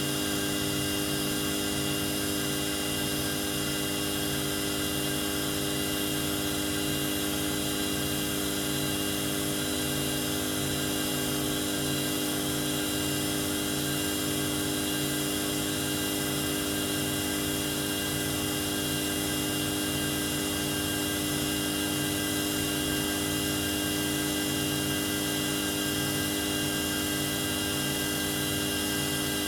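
Multi-function automatic lathe turning small-diameter parts: a steady machine whine made of many held tones, with a fluttering hum underneath, unchanging throughout.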